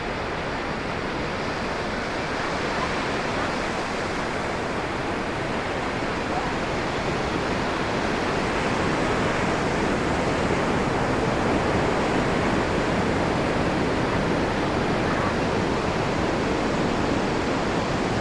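Ocean surf: a steady wash of breaking waves on the beach, swelling slowly louder through the second half.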